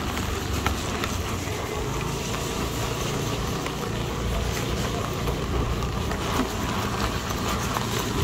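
Motorbike engine running steadily while riding along a wet road, under a steady hiss of road and wind noise.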